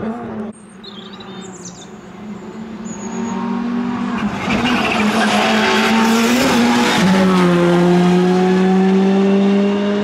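Rally car engine approaching at speed, growing louder over a few seconds and then running hard at a steady high note; the note drops sharply about seven seconds in and then slowly climbs again.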